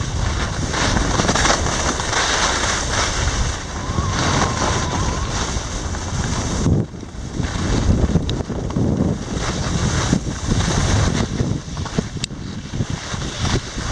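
Wind buffeting the microphone and skis hissing and scraping over packed snow while skiing downhill, with a short lull about seven seconds in.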